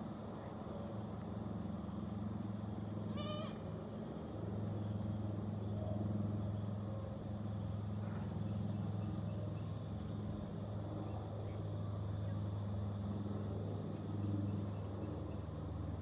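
A goat bleats once, a short wavering call about three seconds in, with a few faint shorter calls later, over a steady low hum.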